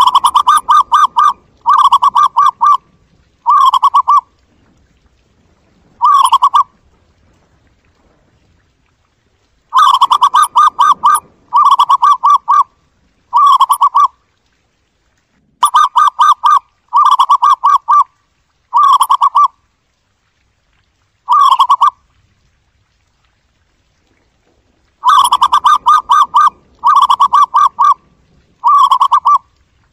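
Zebra dove calling: about fourteen short phrases of rapid, staccato cooing notes, each under a second and a half long. The phrases come in clusters of two or three, separated by pauses of one to three seconds.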